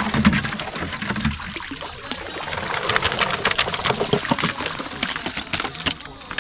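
Shallow seawater splashing and trickling as hands work in the water of a tidal fish trap, with a few low thumps in the first second or so and many small clicks and rustles after.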